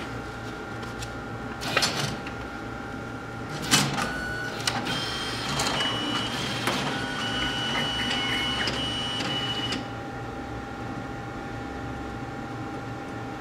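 Diebold ATM's check-deposit mechanism taking in and processing a check. There are a couple of clunks, then about five seconds of mechanical whirring with a thin high whine, which stops suddenly. A steady machine hum runs underneath.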